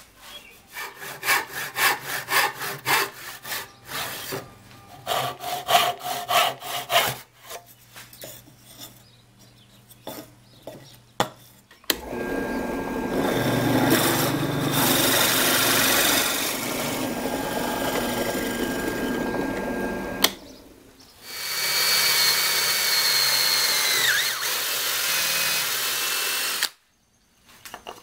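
A run of quick hand-tool strokes on wood, then a benchtop drill press running steadily for about eight seconds as a 3/4-inch bit bores into a pine block. A second steady drilling run follows, its motor whine dipping in pitch once as the bit loads up, before it stops sharply.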